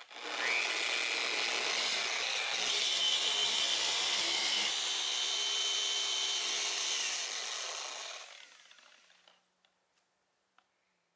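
Rupes dual-action polisher spinning up, then running steadily with its pad against painted aircraft skin during a cutting pass that removes oxidation, with a high whine. It winds down about seven seconds in and fades out by around nine and a half seconds.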